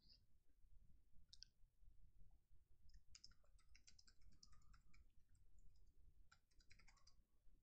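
Faint typing on a computer keyboard: a quick run of light key clicks in the middle of the stretch, after a couple of single clicks near the start.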